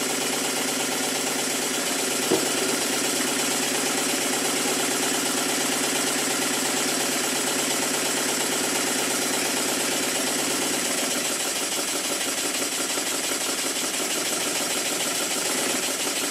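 Circa-1896 model steam engine running fast on compressed air: a rapid, steady beat of exhaust and moving parts without knocking, carried loudly by the workbench it stands on. A single sharp click about two seconds in.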